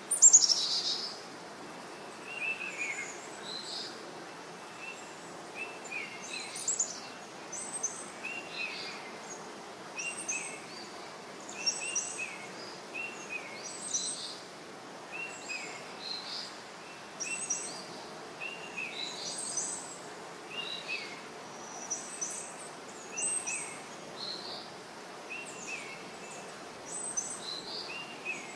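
Birds chirping: short high chirps repeat about every second over a steady hiss, the loudest just after the start.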